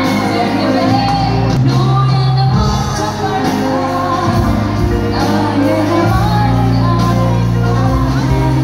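Live band playing a song through a PA system in a large hall: a woman singing into a microphone over keyboard and drums, with long held low notes underneath, and shouts from the audience.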